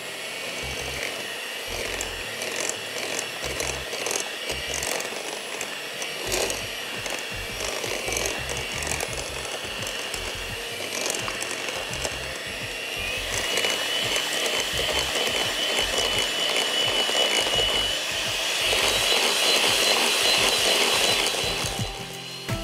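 Electric hand mixer beating cookie dough of butter, sugar, eggs and browned butter. The motor whine steps up in pitch about 13 seconds in and runs louder from about 18 seconds until it drops near the end.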